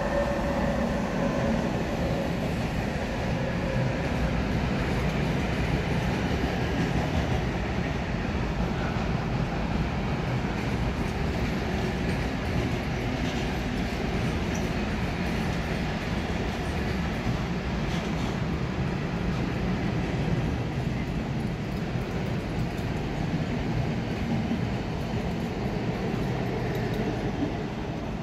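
Freight train hauled by an electric locomotive rolling past, a steady noise of wheels on the rails with no let-up.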